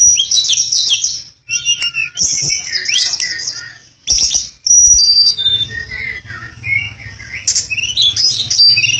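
A flycatcher singing busily: rapid high-pitched chirps, twitters and short whistled notes in quick phrases, with two brief pauses.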